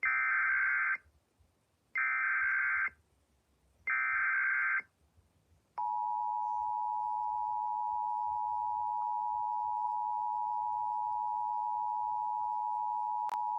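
Emergency Alert System SAME header: three one-second bursts of shrill warbling data tones about a second apart. Then the EAS two-tone attention signal follows, a steady dual tone held for about eight seconds. Together they open a severe thunderstorm warning.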